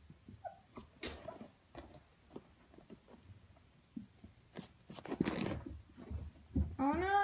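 Husky puppy's paws scuffing and thumping softly on carpeted stairs as it scrambles up and then tumbles down them, with a brief squeak about half a second in. Near the end a voice calls out with a long rising-then-falling "oh".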